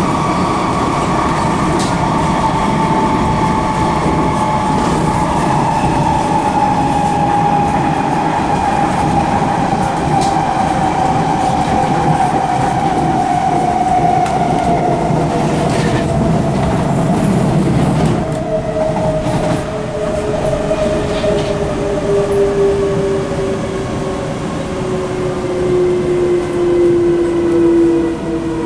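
Two Singapore MRT trains, a C151C and a C151A, heard together from inside their cars: electric traction whines falling slowly and steadily in pitch as the trains slow down, over wheel and track rumble with a few faint clicks. The rumble is heavier for the first two-thirds and eases after that.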